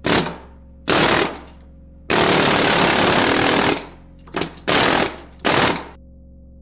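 Pneumatic air hammer rattling in bursts against a small LED off-road light, scarring its housing. There are six bursts: short ones at the start and end, and one long burst of about a second and a half in the middle.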